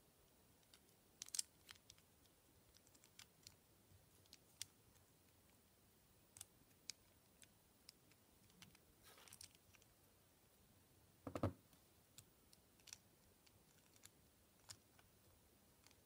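Small plastic Kinder Surprise toy pieces being handled and pressed together: faint scattered clicks and taps, with one louder knock about two-thirds of the way through.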